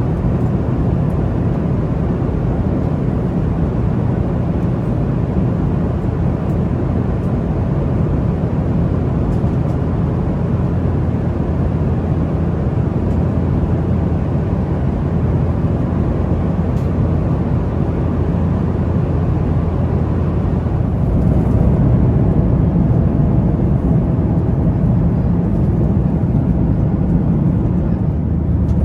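Steady cabin noise of a Boeing 737-900ER in flight: jet engines and rushing air with a low hum, heard from inside the passenger cabin. The noise grows a little louder and its low hum shifts about two-thirds of the way through.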